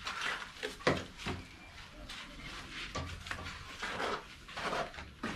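Short, irregular scrapes and knocks of masons' hand tools working wet mortar on a wooden mortar board.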